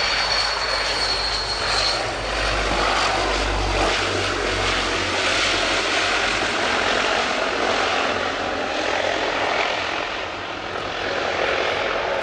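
Transall C-160D's two Rolls-Royce Tyne turboprop engines and propellers running loud as the transport rolls down the runway after landing, with a high whine that fades about two seconds in.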